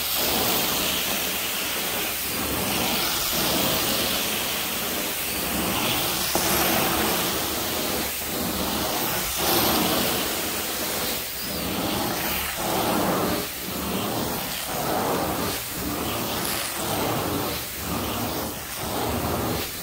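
Hot-water carpet extraction wand running over carpet: a steady rushing hiss of spray and suction. In the second half it rises and falls about once a second with the wand strokes.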